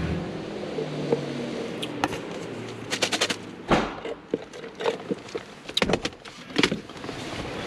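Scattered clicks and knocks of things being handled and moved about in a parked car, such as plastic drink cups and bags. The sharpest knocks come about three to four seconds in.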